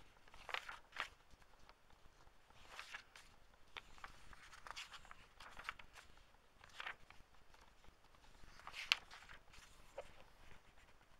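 Paper pages of an old hardback book being turned and smoothed by hand: a string of short, soft paper rustles and swishes every second or two, the sharpest about nine seconds in.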